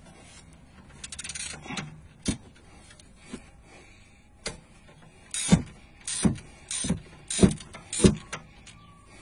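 Hand ratchet clicking as it works the rear brake caliper bolts loose, in five quick bursts about half a second apart in the second half, after a few lighter clicks near the start.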